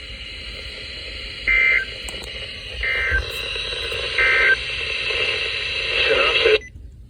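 Three short bursts of Emergency Alert System end-of-message data tones from a NOAA Weather Radio broadcast, each a buzzy two-tone warble about a third of a second long, spaced a little over a second apart. They sound over steady radio hiss, which cuts off abruptly near the end as the broadcast audio stops.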